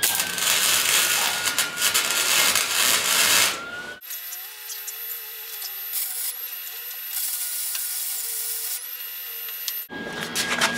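Lincoln Electric wire-feed welder's arc crackling and hissing as a weld bead is run, in two stretches split by an edit about four seconds in.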